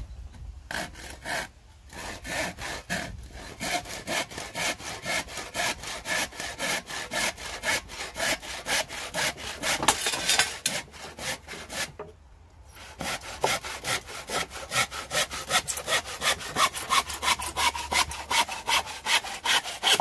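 Handsaw cutting through a wooden pallet plank with fast, even back-and-forth strokes. It stops for about a second roughly twelve seconds in, then saws on until the offcut comes free at the end.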